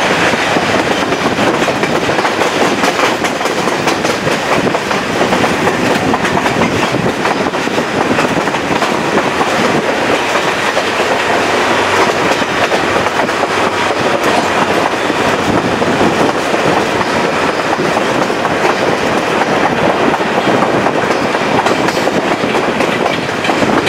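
Chepe passenger train running along the track, heard from beside a moving coach: a loud, steady rush of wheel-on-rail noise with the clickety-clack of the wheels.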